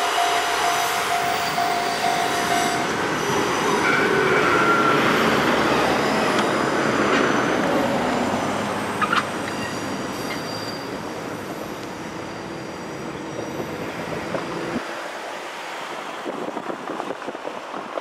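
KiHa 11 series diesel railcars moving slowly through the yard, with their diesel engines running and the wheels squealing on the curves. A level crossing warning bell dings steadily at first and stops about three seconds in. The train sound fades after about fifteen seconds.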